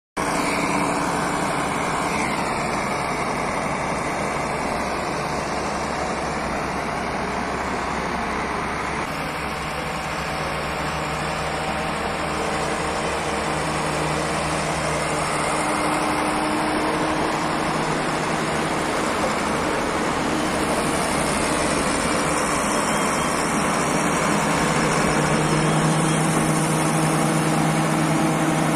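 Crawler bulldozer's diesel engine running steadily while it works.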